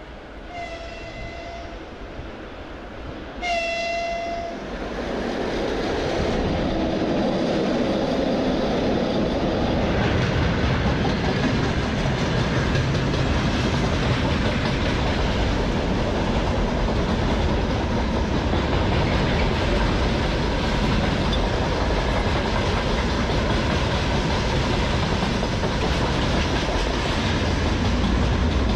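Electric freight locomotive (3ES4K 'Donchak') sounding its horn in two short blasts as it approaches. The train then arrives and its wagons pass close by in a loud, steady noise of wheels on rails.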